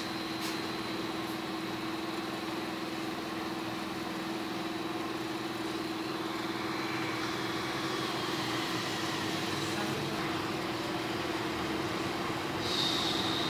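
Hot air rework station blowing steadily at a low airflow setting, with a steady hum, heating a laptop motherboard inductor to melt its solder for removal.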